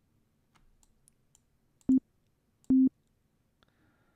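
Two single synthesizer notes from a Logic Pro software instrument, a plain pure tone near middle C, the second a little longer than the first. Faint mouse and keyboard clicks come between them.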